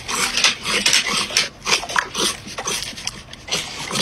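Black Labrador snapping at a green bean held out to it, a quick run of short, sharp dog sounds.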